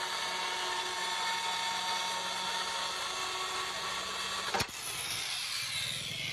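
Kainuo 4003 handheld tile cutter with a 110 mm diamond blade running under load as it cuts through a glazed ceramic tile. About four and a half seconds in, a sharp click, then the motor winds down with a falling whine.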